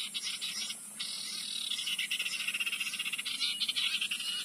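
A recorded bird call played through a phone's speaker as a lure for common ioras: a shrill, rapid chattering that breaks off briefly about a second in and then goes on. A steady high insect hiss lies underneath.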